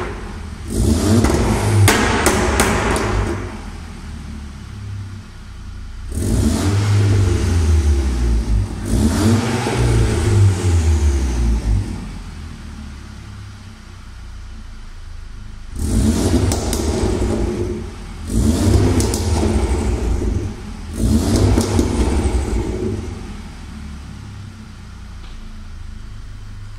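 Volkswagen Golf 6 GTI's 2.0-litre turbocharged four-cylinder (EA888 Gen 2) free-revving in about six blips and dropping back to idle between them. Exhaust pops and crackles come as the revs fall, from the deactivated overrun fuel cut-off set to its stage 2.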